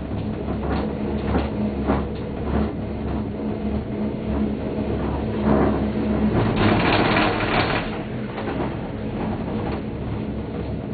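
Gondola cabin of a 1987 Leitner six-seat lift running uphill on the cable, heard from inside. A steady hum is broken by a regular clacking about one and a half times a second, and a louder rumble swells for a couple of seconds past the middle.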